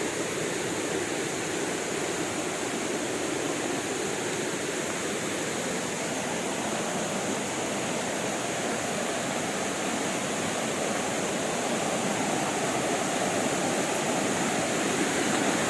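A small waterfall running over rock ledges, its water rushing steadily and swollen with rainy-season flow. The rush grows a little louder toward the end.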